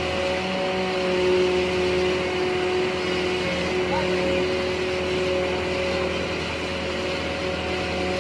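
Claas Crop Tiger 30 tracked combine harvester's diesel engine running steadily while the machine is driven slowly, a constant drone with a few steady tones.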